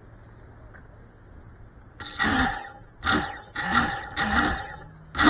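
A voice giving five short, loud calls, starting about two seconds in and coming roughly every half second to a second, after near-steady low background noise.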